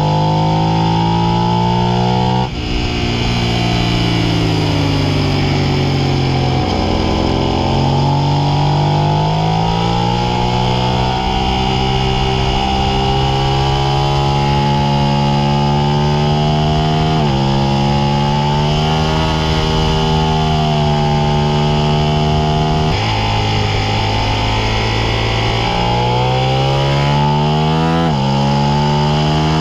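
Suzuki SV650's V-twin engine heard on board at racing speed, revving up and down. About two and a half seconds in the pitch drops suddenly and keeps falling for several seconds before climbing again. Later on it rises and then drops sharply several times as the rider changes gear.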